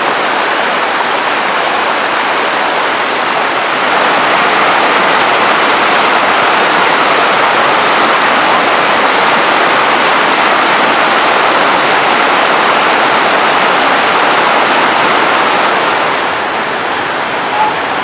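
Waterfall, water pouring down in a steady, loud rush; it grows louder about four seconds in and eases back near the end.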